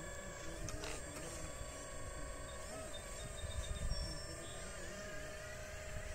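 Herrlieb 946 scale model excavator's electric drive whining steadily as its boom and arm move, the pitch of the whine shifting a little with the load.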